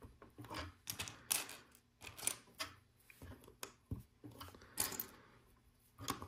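Plastic LEGO pieces clicking and clattering irregularly as brown pieces are pressed onto a frame of black bricks, with the rustle of fingers on the plastic.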